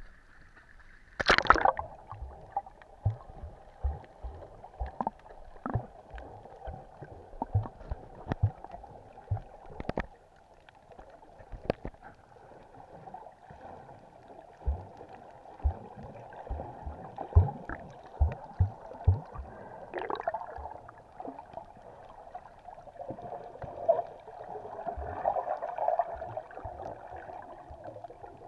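Muffled underwater sound through an action camera's waterproof housing. A sharp splash about a second in as the camera goes under, then a dull steady hum of water with irregular low knocks and thumps and a few sharp clicks.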